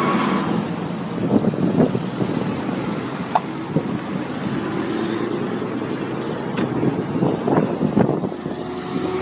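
Steady road traffic noise, with a few short light knocks scattered through it.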